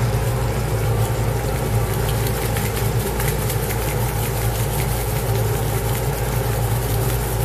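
Green beans and zucchini sizzling in a frying pan, a faint crackle over a steady low hum.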